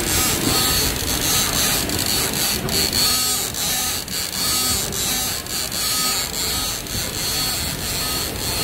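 Automatic PUR hot-melt glue dot dispensing machine at work: the gantry's motors whine in short repeated moves, with quick clicks as the dispensing head lays glue dots.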